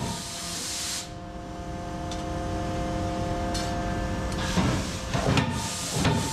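Factory machinery running: a hissing, clattering noise, with a steady hum of several tones from about a second in until about four and a half seconds.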